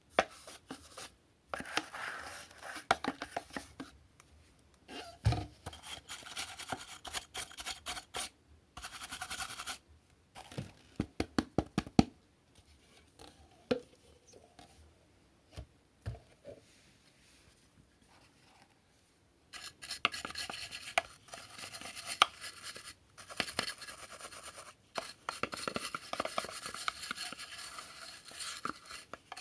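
Plastic parts of a cordless stick vacuum being handled and taken apart for cleaning: clicks, knocks, scraping and rubbing. There is a quick run of sharp clicks about ten seconds in, and steady rubbing through the last ten seconds.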